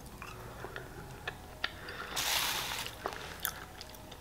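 Close-miked mouth sounds of chewing a hard, dried-fondant candy: scattered soft wet clicks, with a short breathy rush about two seconds in.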